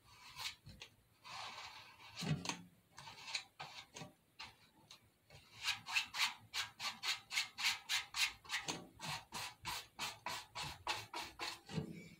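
Paintbrush stroking back and forth over a paper picture glued onto a can. The strokes are sparse and uneven at first, then run steadily at about four a second from about halfway through.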